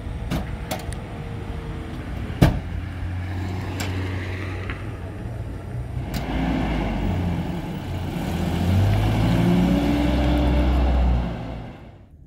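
Zamyad pickup truck: a few light clicks and a loud door slam about two seconds in, then the engine running and revving up as the truck pulls away, fading out near the end.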